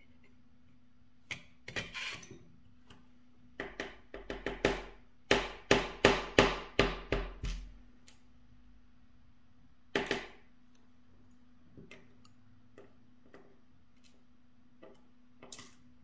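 Metal clicks and ringing taps from a De Guard dimple lock cylinder being taken apart, picked up through a contact mic: a few clicks, then a run of about eight strong taps in a row in the middle, one more near the end of the busy part and a few faint ticks, over a faint steady hum.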